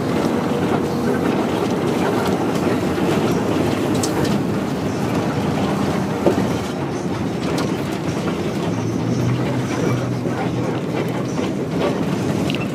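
Cabin noise of a moving minibus (marshrutka): a steady engine and road rumble with scattered small rattles and clicks.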